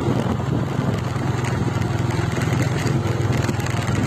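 Motorcycle engine running steadily under way, a constant low hum, with road noise from its tyres on a rough gravel track.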